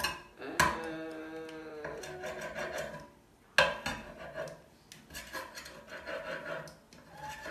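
Cooked chicken being chopped with the cutting edge of a serving tool against a stoneware bar pan: the edge grinding and scraping on the stoneware, with a sharp knock about half a second in and another about three and a half seconds in.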